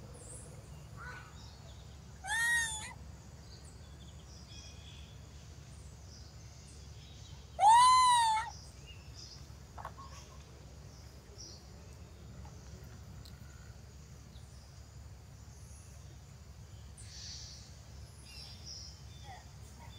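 Two wailing cries from a mother monkey missing her baby, each arching up and then down in pitch: a short one about two seconds in, and a longer, louder one near eight seconds. Faint chirps and steady outdoor background noise lie between them.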